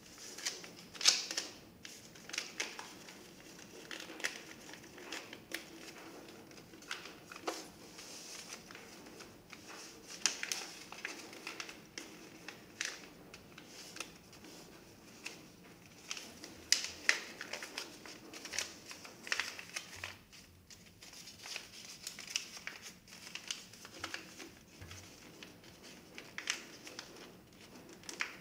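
A sheet of white paper being folded and creased by hand: irregular rustling and crinkling, with short sharper crackles as the folds are pressed down.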